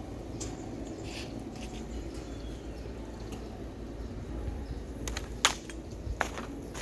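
Steady low outdoor rumble, with a few sharp clicks or snaps near the end.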